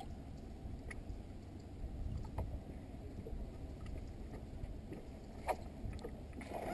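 Faint steady low rumble of a fishing boat sitting on the water, with a few sharp clicks, the loudest about five and a half seconds in.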